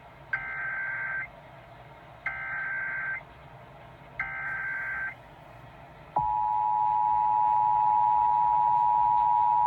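Emergency Alert System header received on AM radio: three roughly one-second bursts of digital SAME data tones, evenly spaced. About six seconds in, the steady, loud two-tone attention signal (853 and 960 Hz) starts abruptly.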